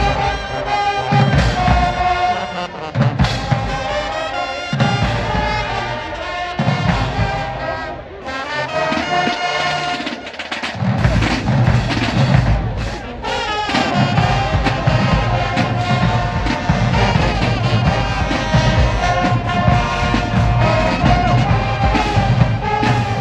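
High school marching band playing in the stands: brass horns carrying the tune over a heavy drum line. The drums drop back for a few seconds near the middle, then the full band comes back in.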